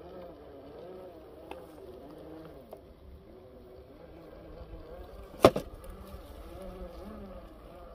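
RC rock crawler's Hobbywing Fusion 2300kV brushless motor and geared drivetrain whining, the pitch rising and falling with the throttle as it creeps over rock. A few light clicks and one sharp knock come about five and a half seconds in.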